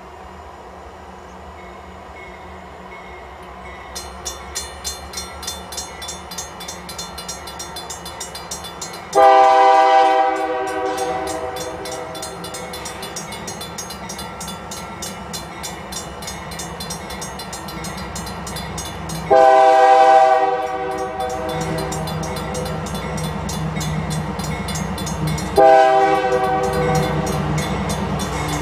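Approaching diesel freight locomotives sound a multi-chime air horn in two long blasts and then a short one, the long-long-short pattern that opens a grade-crossing signal. Under the horn is a fast, even ticking, and the low engine rumble grows louder near the end as the train draws close.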